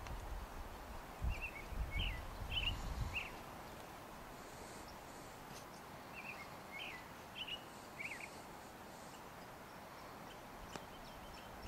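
A small bird singing two short phrases of four or five quick chirping notes, a few seconds apart, over faint outdoor background noise. Dull low thumps sound in the first three seconds.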